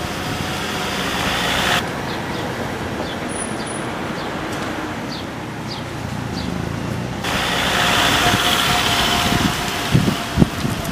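Road traffic noise: a steady rush of cars passing on the street, swelling near the end as a car goes by.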